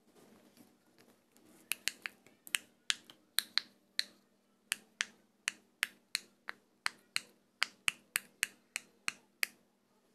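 Silicone pop-it fidget toy's bubbles being pressed through one by one with the fingers: a quick series of sharp pops, about three a second, starting nearly two seconds in.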